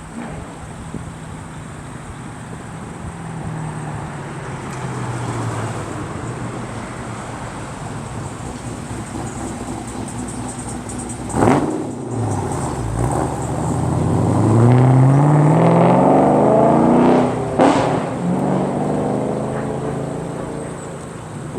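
A car accelerating on the road, its engine note climbing in pitch and growing loud about two-thirds of the way through. A sharp break follows, then a steadier, quieter engine note, as after a gear change.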